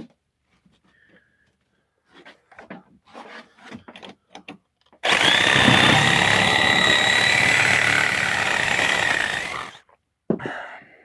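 A few light knocks of handling wood, then an electric reciprocating saw runs steadily for about five seconds, cutting slats off a wooden pallet, and winds down near the end.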